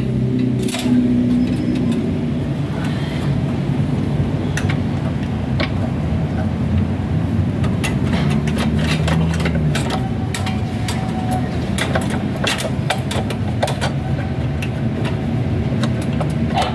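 Scattered metallic clinks and knocks as a new power steering hose and its fittings are worked into place from under the vehicle, coming thickest in the second half, over a steady low hum.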